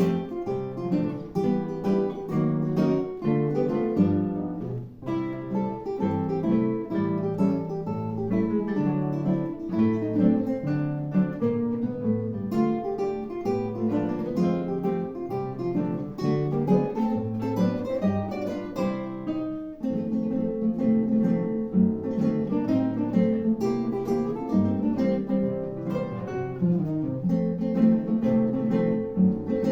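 Solo classical guitar playing, plucked notes and chords in a flowing line, with brief breaks in the phrasing about five and twenty seconds in.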